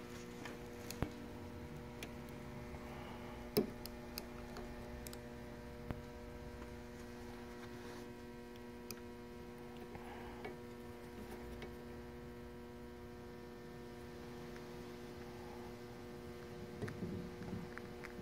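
Steady electrical mains hum, with a few faint scattered clicks and taps.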